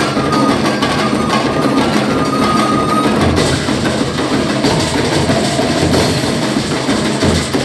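Tribal-style drum and percussion ensemble playing a dense, driving beat with sharp wood-block-like knocks. A held higher tone sounds over it for the first three seconds or so.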